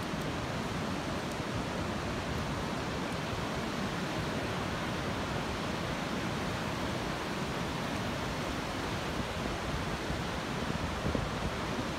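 Steady, unbroken rushing of ocean surf washing up a beach, rising slightly near the end.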